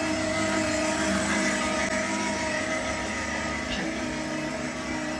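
A steady mechanical hum of a motor, several even tones over a noisy drone, holding level throughout.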